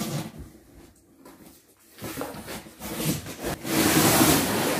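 Large cardboard box being handled and opened, with cardboard rustling and scraping, loudest for about a second near the end.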